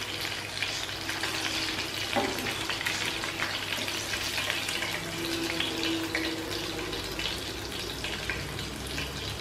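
Masala-marinated fish pieces shallow-frying in hot oil in a pan: a steady sizzle full of small crackles and pops. A steel spatula works in the pan to lift a cooked piece out, with one sharper click about two seconds in.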